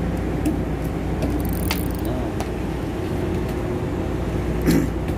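Steady low machinery drone of a ship's engine running at an even speed, with a few short clicks over it.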